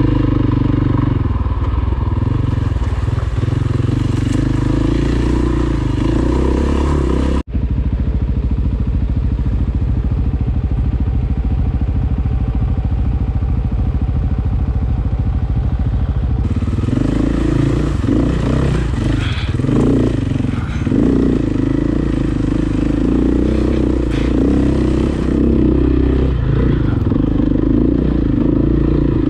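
Dirt bike engine running on a rocky trail, with clatter from the bike over rough ground. About seven seconds in the sound cuts abruptly to a steadier engine sound, and about sixteen seconds in it turns busier again as riding resumes.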